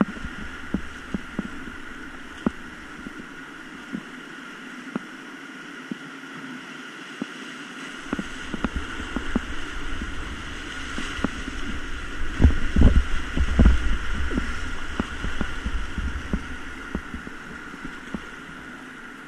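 Rushing whitewater around an inflatable kayak, with repeated short knocks and splashes from paddle strokes and waves hitting the boat. About two-thirds through, a run of heavier low thumps and splashing as the kayak crashes through a breaking wave.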